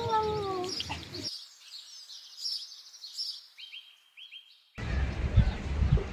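A cat's meow trails off, falling in pitch, in the first second. Faint high bird-like chirps follow, then a short run of quick high tones. From about five seconds in there is a louder low rumbling noise with a few thumps.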